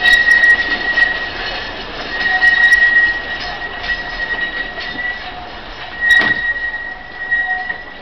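Alishan Forest Railway narrow-gauge train cars pulling out along a curved track, the wheels squealing steadily in a high screech that swells and fades. There is a single sharp clack about six seconds in.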